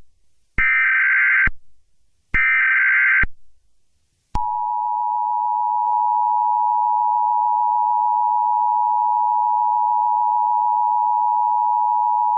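Emergency Alert System tones: two short, harsh data bursts of the alert header, each under a second and a second apart. About a second after the second burst, the steady two-tone attention signal begins and holds unchanged, announcing an emergency broadcast.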